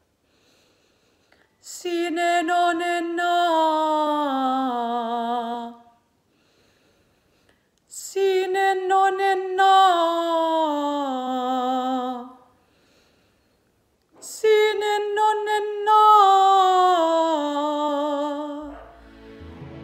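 A woman's trained classical voice singing a resonance vocalise: three descending stepwise phrases on an open vowel with vibrato, separated by short pauses, the exercise moved up a half step.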